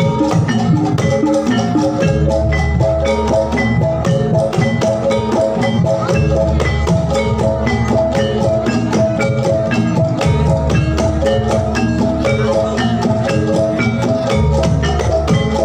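Amplified Jathilan gamelan music: metallophones struck in a fast, even run of notes over drums and a deep, swelling bass.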